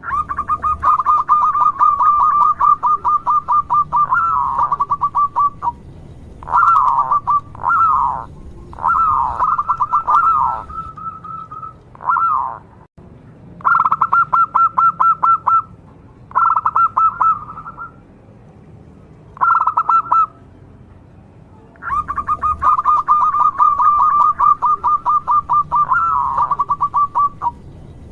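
Zebra dove (local perkutut) cooing in rapid rattling trains of notes at one steady pitch. The song comes in several phrases with short pauses between them, with a long rolling phrase at the start and another near the end.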